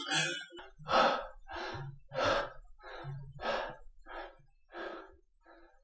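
A person's short, rapid gasping breaths, about two a second, some with a little voice in them, growing fainter toward the end.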